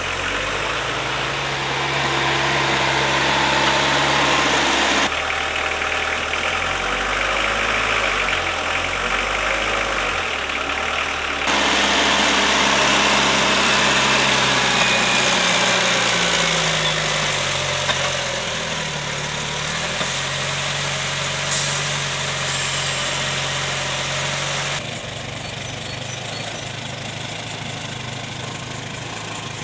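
Small tractor engine running at low revs, its pitch dipping and rising again about two-thirds of the way through. The sound changes abruptly a few times.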